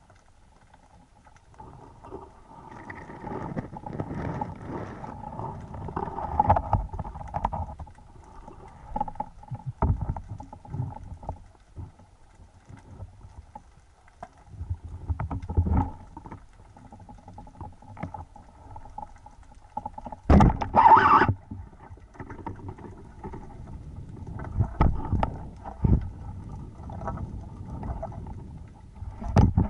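Muffled underwater noise picked up through a speargun-mounted camera's housing: irregular swells of water rush and low knocks from the diver's movement, over a faint steady hum. A brief louder burst comes about two-thirds through.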